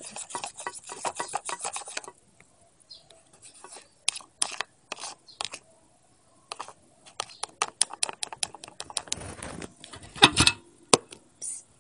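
Stirring utensil clicking and scraping against a container while shampoo and body wash are mixed into slime: a quick run of taps for the first two seconds, then scattered clicks, with a louder knock near the end.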